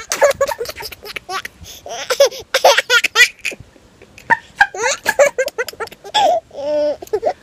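A baby laughing in quick, repeated bursts, with a longer drawn-out note near the end.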